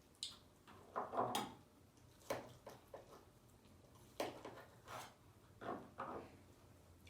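Close-up eating sounds: wet chewing and smacking on mouthfuls of vegan lasagna, as a string of short separate smacks and a few sharp clicks.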